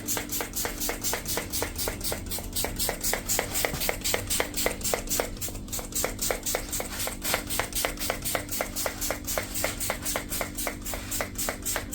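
Background music with a fast, even rhythm over held chords.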